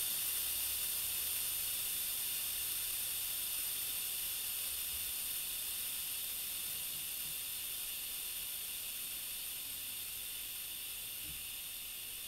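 Compressed air hissing steadily out of a homemade compressor's air tank as it is bled down, growing gradually quieter as the pressure falls. The tank is being emptied so that the pressure switch will restart the refrigerator compressor.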